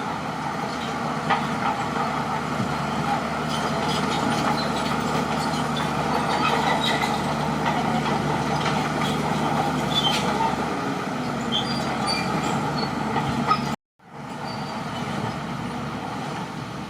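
Crawler bulldozer working: a steady diesel engine drone with scattered metallic clicks and squeaks from the tracks. It cuts out abruptly for a split second near the end, then resumes a little quieter.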